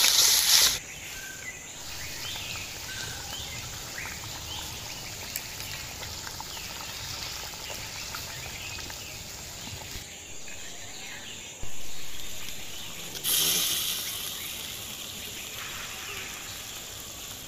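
Water poured into a hot wok of curry hisses loudly and cuts off about a second in. Then the curry simmers quietly under faint bird chirps and insects. Later come two sudden loud hissing surges from the boiling pan, a second or so apart, each fading away.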